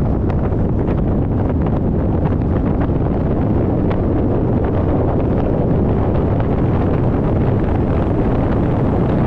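Steady wind and road noise of a car driving at speed, with wind buffeting the microphone.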